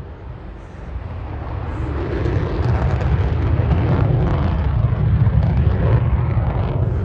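F-35A Lightning II's jet engine rumbling overhead, swelling steadily from about a second in to its loudest near the end.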